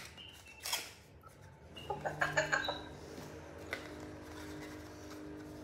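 Small paperboard box of wireless earbuds being handled and opened: faint scrapes and a few light clicks, with a brief pitched sound about two seconds in.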